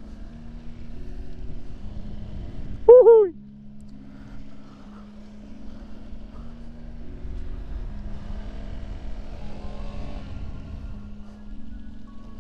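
Honda Stylo 160 scooter's engine running under throttle on a test ride, beneath background music of steady held notes. About three seconds in, a short, loud call that falls in pitch stands out above everything else.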